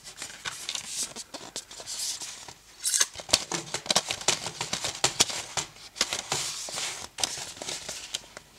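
Hands handling a fold-out cardboard Blu-ray digipak with clear plastic disc trays: irregular rustling and scraping of card, with many small clicks and taps of plastic, a louder cluster about three seconds in.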